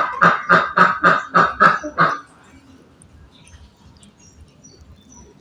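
Rapid, regular honking calls, about four a second, that break off about two seconds in and start again just after the end.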